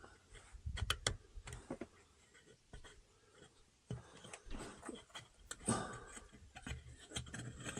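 Scattered light clicks, taps and rubbing from engine parts being handled and felt over by hand.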